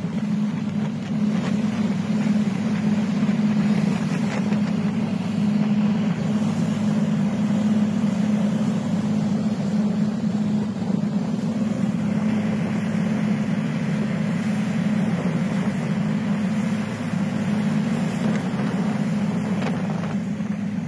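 Patrol boat under way at sea: its engines run with a steady low drone, over a rush of wind and water along the hull.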